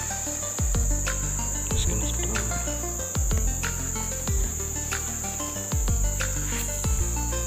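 Insects, crickets or similar, droning steadily in one high, even whine, under background music with a deep bass and a regular beat.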